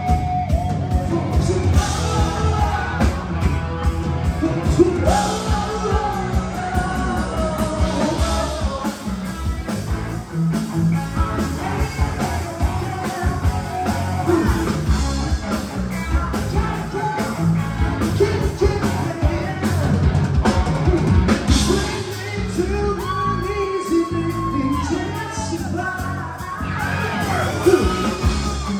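Rock band playing live with a singer.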